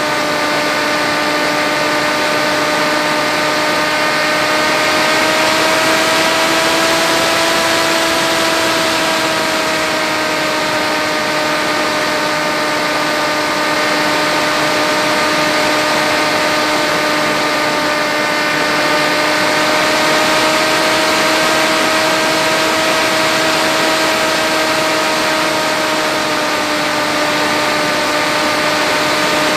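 Brushless electric motor and propeller of an FX-61 flying wing in flight, heard from the onboard camera as a steady whine over a constant hiss. The pitch drifts only slightly up and down.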